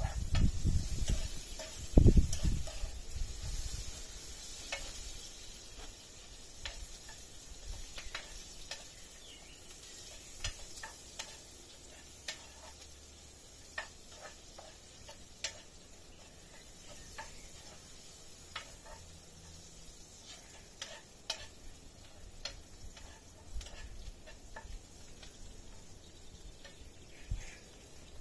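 Food frying in a pan: a steady sizzle with scattered small pops and crackles. Low rumbling thumps in the first few seconds.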